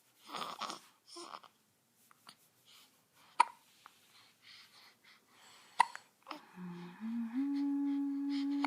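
A baby hiccuping: two short, sharp hics about two and a half seconds apart among soft breaths. From about six and a half seconds in, steady humming in held notes that step up and down.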